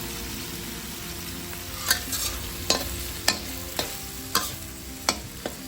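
Soy sauce prawns sizzling in a wok with a steady hiss that eases slightly, while a spatula stirs them and knocks against the wok about seven times in the second half.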